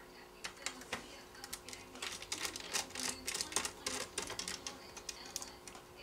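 Irregular light clicks and taps of a precision screwdriver working small screws and handling plastic laptop parts, coming thicker from about two seconds in.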